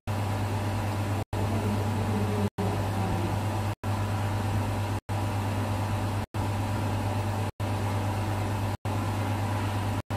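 Steady low hum over an even hiss, like a machine running, cut by very short silent dropouts about every second and a quarter.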